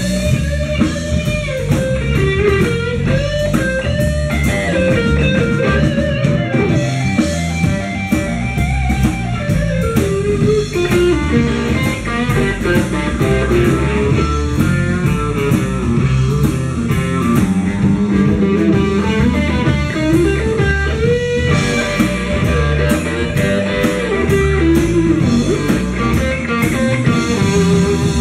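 Live blues band playing an instrumental passage, an electric guitar leading with bent, winding melodic lines over bass and drums.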